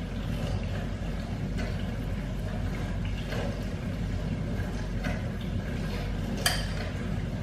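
A steady low hum, with a few faint clicks and one sharp clink near the end: a metal spoon knocking against a ceramic cereal bowl.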